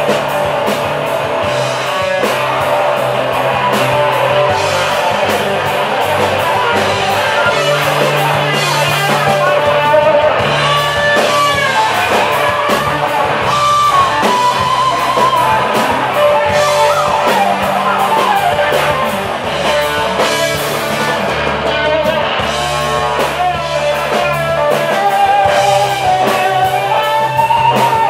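Live band playing an instrumental passage: an electric guitar lead with bending notes over a second electric guitar, bass guitar and drum kit.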